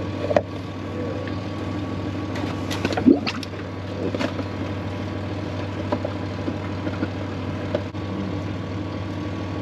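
Hydraulic oil trickling into a plastic bucket, with scattered metal clicks and knocks as the spin-on hydraulic filter is worked off the filter mount of a John Deere tractor, over a steady engine-like hum. The clicks come in a cluster around three seconds in and singly elsewhere.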